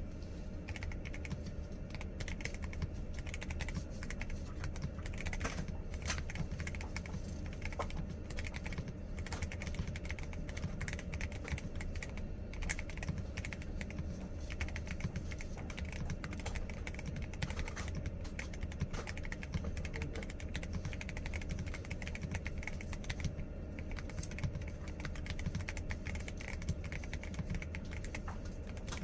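Typing on a MonsGeek M5 mechanical keyboard with Holy Tom tactile switches and PBT keycaps: a steady, fast stream of keystroke clacks.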